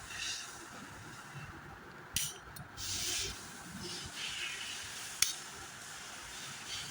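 Metal motorcycle gearbox pinions and parts being handled and checked by hand: two sharp metallic clinks, with short hissy rustling sounds between them.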